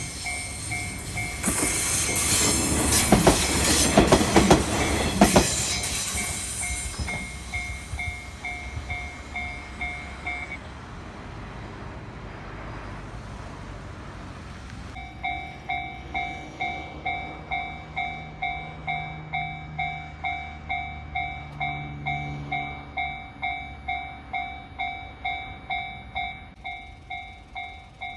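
Railway level-crossing warning bell ringing in a steady two-tone pulse about twice a second while a single-car train rattles over the crossing about 2 to 6 seconds in. The bell stops a few seconds after the train has gone and starts ringing again about 15 seconds in.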